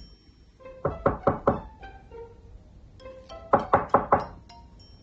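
Knuckle raps imitating someone knocking at a door: a quick run of about four knocks about a second in, and another run of four or five about three and a half seconds in. Light plucked background music plays underneath.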